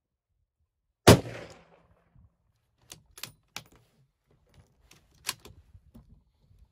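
A bolt-action rifle fires one shot about a second in, followed by a few sharp metallic clicks as the bolt is worked and the spent case ejected.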